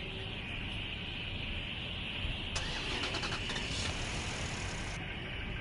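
A vehicle engine cranks for about two and a half seconds, starting roughly two and a half seconds in, then catches and settles into a low idle.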